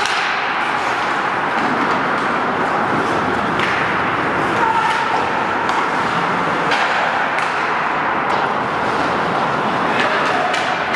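Ice hockey play in a rink: a steady rush of skates scraping the ice, with a sharp clack of stick, puck or boards every second or two.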